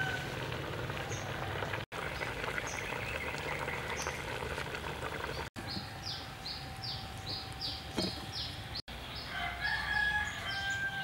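Village chickens: a rooster crowing, over a steady background hum. In the second half comes a run of short, quick high chirps, about three a second.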